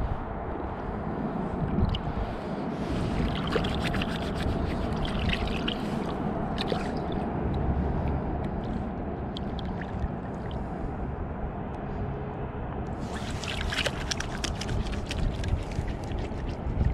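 Water splashing and sloshing in the shallows as a small blue catfish is held and released by hand, in two bouts of crackly splashes, the later one near the end, over a steady low rumble.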